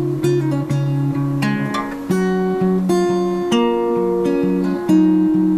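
Background music on acoustic guitar: plucked and strummed chords, changing every half second to a second.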